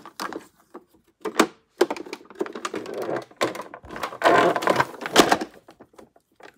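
Plastic toy parts clattering and clicking as they are handled and fitted together: a couple of single knocks, then a long irregular run of quick clicks and knocks.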